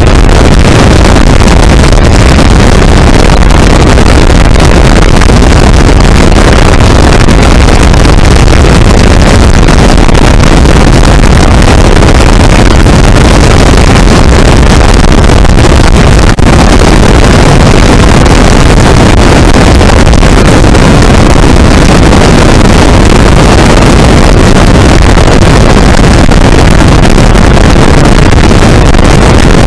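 Loud, steady engine, propeller and wind noise in the open cockpit of a biplane in flight, overloading the microphone.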